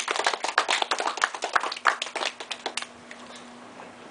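Audience applause, a crowd clapping that dies away about three seconds in.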